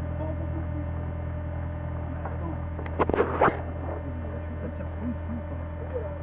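Steady low hum with a few fainter even tones above it. About three seconds in there is a short burst of rustling and clicks, and faint voices come and go.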